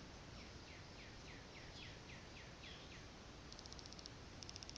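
Small birds calling faintly: a run of about nine quick down-slurred chirps, then twice a very fast, high trill near the end.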